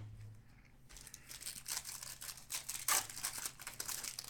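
A trading-card pack wrapper being torn open and crinkled: a dense run of crackling rustles starting about a second in, after a short click.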